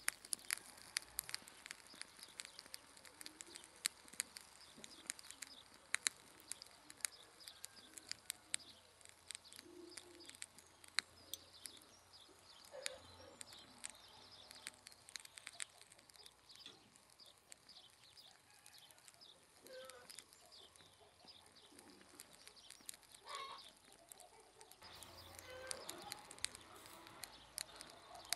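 Faint crackling and popping of meat grilling over coals: a rapid scatter of sharp ticks that thins out about halfway through. In the second half come a few short bird calls.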